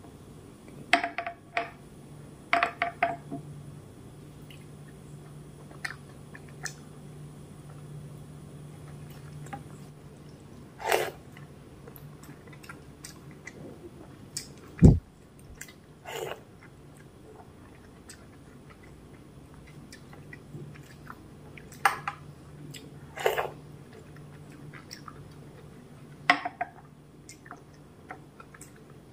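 Close-miked eating sounds: a bare hand squishing through rice and milk in a steel plate, with chewing and scattered wet smacks and clicks. One dull thump about halfway through is the loudest sound.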